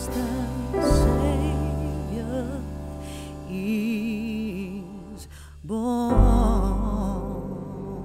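Background music: a slow melody with vibrato over held low notes, with a new phrase beginning about six seconds in.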